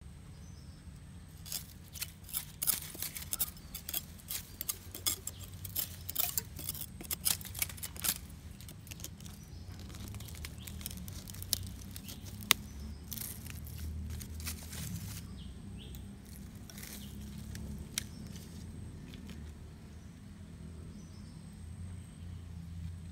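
Dry palm fronds and leaf litter crackling and rustling in short, crisp clicks as a knife pokes into a soil mound, dense for the first several seconds and sparser after, over a faint steady high tone.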